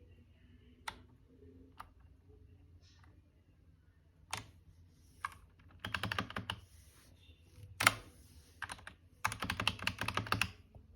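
Typing on an SK61 mechanical keyboard with Gateron optical brown switches: a few single keystrokes, then two quick runs of rapid typing, one around the middle and one near the end.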